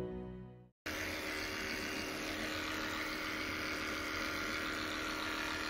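Soft music fades out in the first second; then electric dog grooming clippers run with a steady hum, shaving off a goldendoodle's matted coat.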